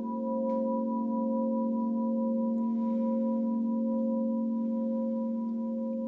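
Crystal singing bowls ringing together in a sustained chord: several steady tones layered over one another, with a slow pulsing beat between them. The chord eases off slightly near the end.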